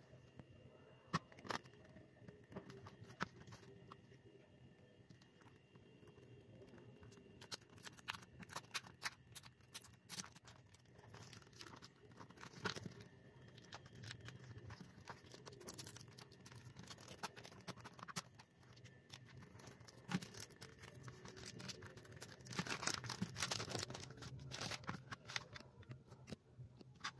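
Cellophane shrink-wrap being picked at with fingernails and torn off a plastic CD jewel case: scattered sharp clicks, scratches and crinkling tears. The sound comes in two busier spells, about a third of the way in and again near the end.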